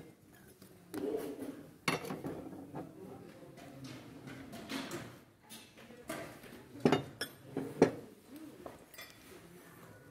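Porcelain dishes clinking and knocking as pieces are handled on shop shelves, with sharper knocks about two seconds in and twice about three-quarters of the way through.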